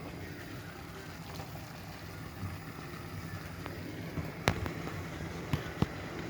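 A spoon stirring beef in a pan over steady cooking noise, with a few sharp clinks of the spoon against the pan, the loudest about four and a half seconds in and two more near the end.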